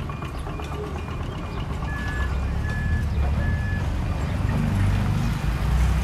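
Heavy-equipment diesel engines running, with reversing alarms beeping over them. A fast, higher-pitched beep runs for the first second and a half. A slower, lower beep then sounds three times. The engine noise grows louder near the end.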